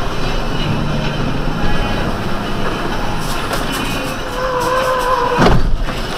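Steady engine and road noise inside a moving propane bobtail truck's cab. A held note sounds for about a second from roughly four seconds in, then a sharp thump comes as an oncoming pickup's trailer passes close alongside.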